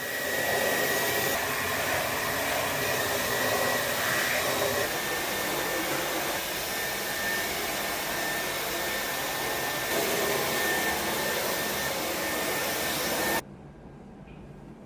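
Vacuum cleaner running steadily with a thin high whine, then cutting off suddenly near the end.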